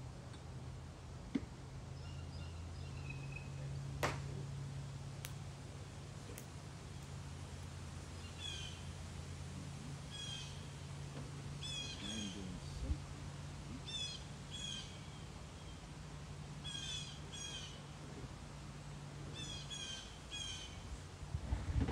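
A wild bird calling over and over in short chirpy notes, grouped in twos and threes, starting about a third of the way in, over a steady low hum. A few sharp clicks sound in the first few seconds.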